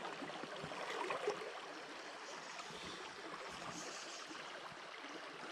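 Water of a small, shallow burn running steadily over its bed, an even rushing babble.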